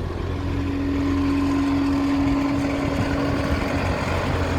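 Skid steer engine running steadily, a continuous drone with a steady whine over it.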